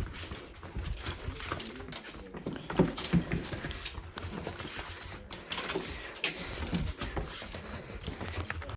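A cat playing at hunting a toy: a busy run of quick taps, knocks and scrabbles from paws and toy, with a few short low sounds around a third of the way in.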